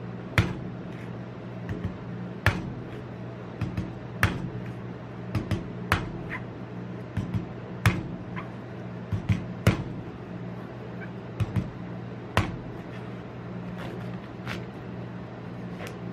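Cleaver chopping into the husk of a king coconut: about a dozen sharp chops at irregular intervals, the hardest in the first twelve seconds and lighter ones near the end, over a steady low hum.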